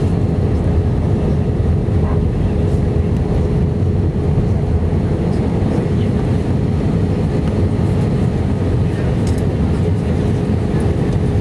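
Steady low rumble of an Airbus A319's CFM56 engines and rushing air, heard inside the passenger cabin, with a thin steady hum running through it.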